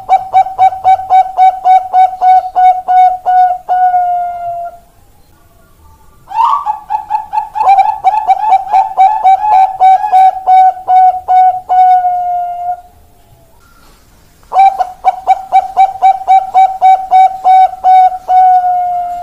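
Zebra dove (perkutut Bangkok, a Thai-bred song line) singing: three bouts of rapid staccato cooing notes, about five a second, each trailing into a longer held note, with short pauses between bouts.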